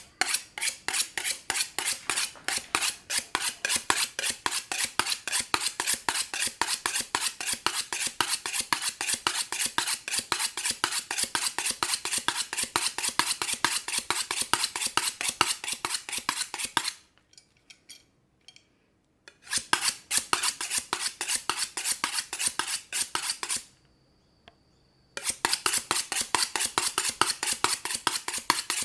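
A kitchen knife blade drawn again and again along a honing steel, metal scraping on metal in quick, even strokes. The strokes stop twice for a second or two, then resume.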